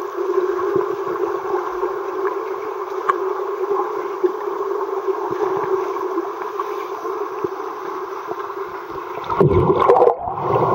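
Muffled underwater ambience of a swimming pool: a steady low hum with water noise, growing louder and rougher about nine seconds in.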